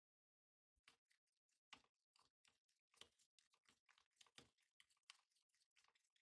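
Faint, irregular clicks and taps, several a second, starting about a second in.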